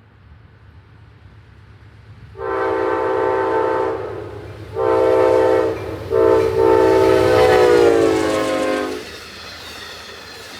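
Amtrak diesel locomotive's multi-chime air horn sounding for a grade crossing: a long blast, a shorter one, then a long final blast that drops in pitch as the locomotive passes, over the building rumble of the approaching train. The train's rolling noise carries on after the horn stops.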